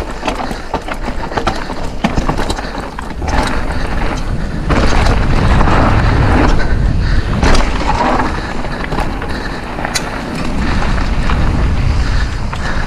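Mountain bike ridden fast over a dirt jump trail: knobby tyres rolling on packed dirt, with the bike's chain and frame rattling and clicking over the bumps. A low rumble of wind buffeting grows louder from about five seconds in as the speed picks up over the jumps.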